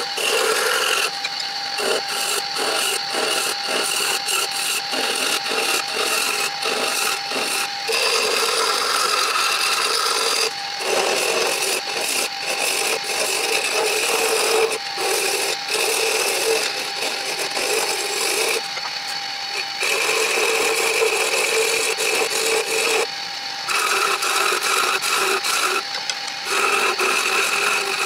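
A wood lathe spinning a wooden stick while a chisel cuts along it: a continuous scraping hiss of cutting over a steady hum. It breaks off briefly several times as the tool lifts away from the wood.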